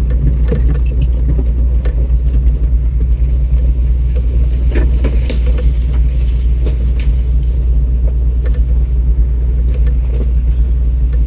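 Off-road vehicle's engine running at crawling speed, a steady low rumble, with scattered knocks and rattles as it works over a rutted, washed-out trail, most of them between about four and seven seconds in.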